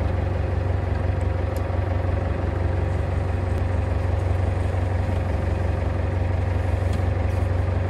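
Fishing boat's engine running steadily, a low even hum with a steady higher tone over it.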